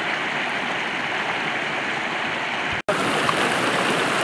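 Small rocky mountain stream running over stones, a steady rush of water. A brief drop-out comes just under three seconds in, after which the water is a little louder and brighter.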